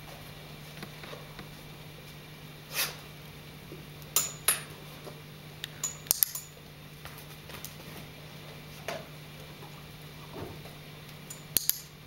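Scattered light clinks and knocks as a dog in a harness and shoes moves about, the sharpest around four and six seconds in and again near the end, over a steady low hum.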